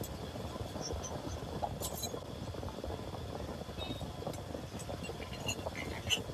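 Plastic jugs scooping watermelon juice and ice out of a steel pan, with ice and glass clinking, over a steady low street rumble. There are sharp clinks about two seconds in and again near the end.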